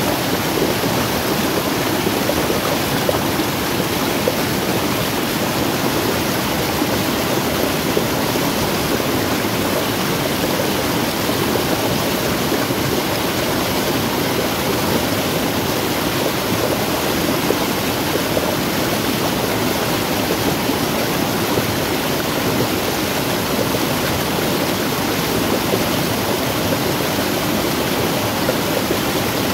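Muddy runoff stream rushing and cascading over small falls in an eroded earth gully: a steady, loud rush of water.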